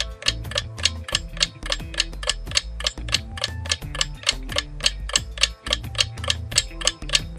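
Quiz countdown background music: a steady clock-like ticking, about four ticks a second, over a changing bass line.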